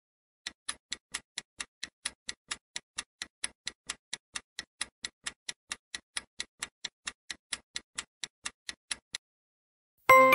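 Clock-tick sound effect counting down a quiz timer: even, sharp ticks, about four or five a second, which stop about a second before the end.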